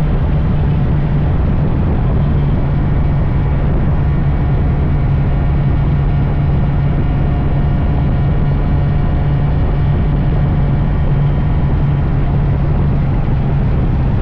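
Two-stroke Honda Dash 125 motorcycle engine running under way at a steady speed, its pitch held level throughout, over a steady rush of noise.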